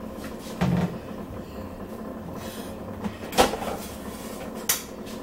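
Kitchen handling sounds: a dull thump, then a sharp knock with a short clatter and one more knock, like a cupboard door or a box being set down, over a steady hum.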